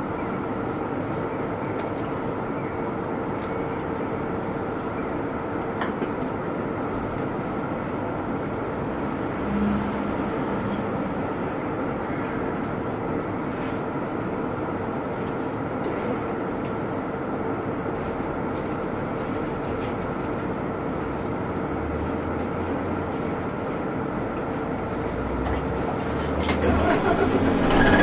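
Inside a Kyoto city bus: a steady hum with a constant tone as the bus moves evenly or stands, then the engine growing louder about two seconds before the end as the bus picks up speed.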